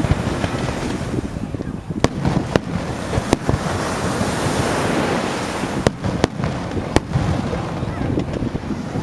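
Aerial fireworks bursting overhead: about six sharp bangs over a steady rushing noise that swells in the middle.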